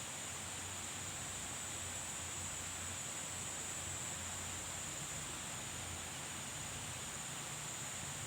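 Steady outdoor ambience: a constant high-pitched insect drone over an even hiss, with no distinct events.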